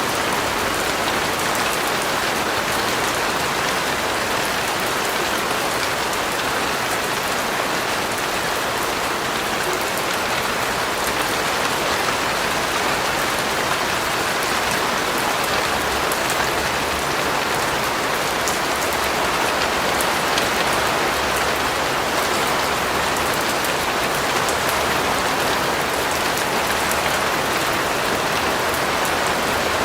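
Steady rain falling, an even hiss of many drops hitting a surface with faint scattered patter, unbroken throughout.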